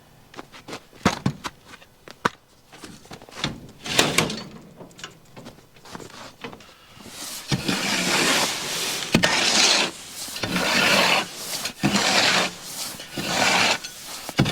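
Scattered knocks and clatter of a feed bucket and bin being handled, then grain being scooped and poured into a bucket in a series of rushing pours, about one a second, through the second half.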